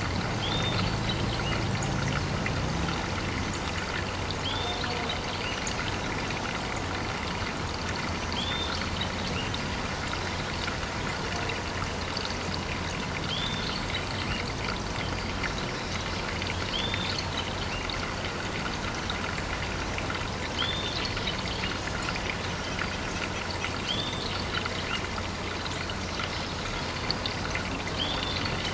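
Water pouring and trickling into a pond: a steady rush with many small drips and splashes. A short high chirp repeats every few seconds over it.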